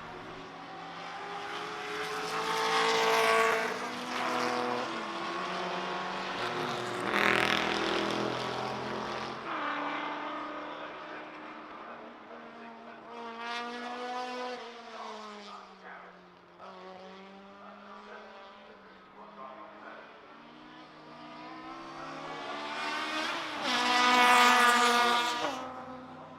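Historic saloon racing cars passing at speed one after another, about four passes. Each engine note swells as the car approaches and drops in pitch as it goes by. The loudest passes come near the start and near the end.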